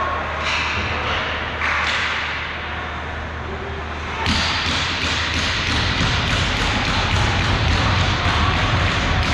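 Ice hockey rink during play: thuds and taps. About four seconds in, this turns suddenly into a louder din with a regular beat of about three a second.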